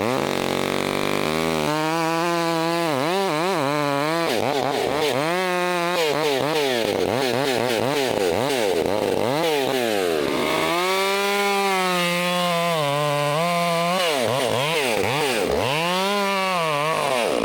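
Chainsaw cutting through a cherry limb, its engine revving up and down over and over as the cut goes in.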